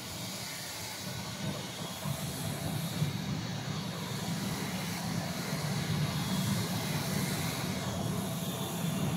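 18-inch two-roll rubber mixing mill running, a steady machine hum from its drive with a hiss over it, growing slightly louder.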